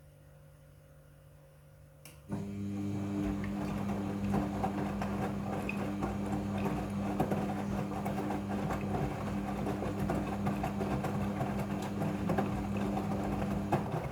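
Midea front-loading washing machine running: a steady electric motor hum with a busy, crackly noise over it, starting suddenly about two seconds in and cutting off just before the end.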